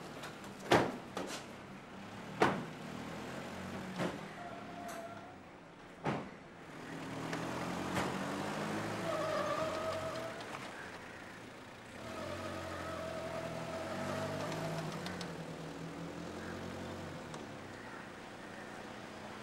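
A few sharp knocks like car doors shutting, then SUV engines running as the vehicles drive in and pull up. A held tone sounds over the engines twice, once briefly and once for a few seconds.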